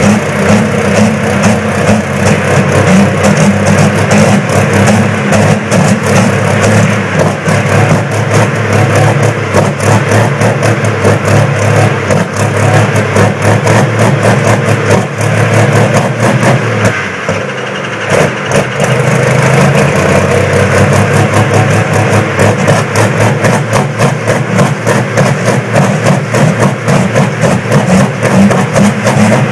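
Diesel engines of two John Deere pulling tractors running loudly together with a dense, rough pulse, the sound dipping briefly about 17 seconds in and then coming back up.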